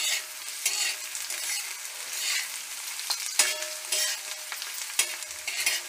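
Chopped onions and a bay leaf sizzling in oil on a tava, with a steel spatula scraping and stirring them several times; the onions are being sautéed until soft.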